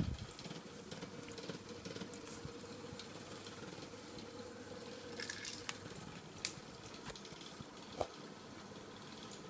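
Faint steady hum from the Frolicat DART DUO laser toy's motor, stopping about halfway through, with a few light taps.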